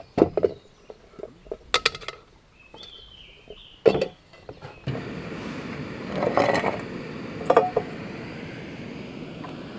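Light clinks and knocks of camp gear being handled, then about five seconds in a steady rush of water with two splashes about a second apart.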